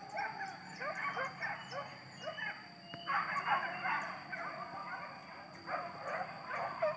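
A pack of hunting dogs barking and yelping over one another in quick, irregular calls, baying on the chase of a wild boar through the brush.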